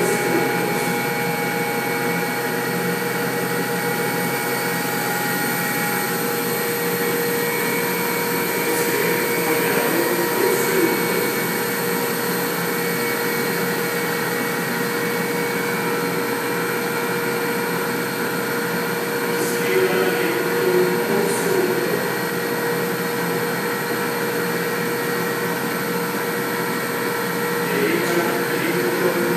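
Steady Lynx helicopter noise played through loudspeakers, a constant mechanical din with several steady tones, mixed with the whir of a small quadcopter's rotors as it hovers.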